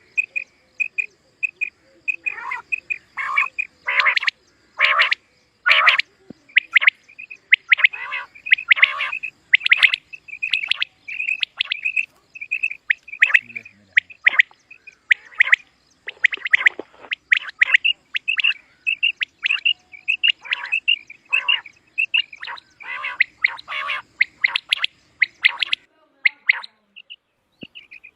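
Common quail calling: a fast run of short, high, clipped notes, several a second, with louder, fuller notes mixed in.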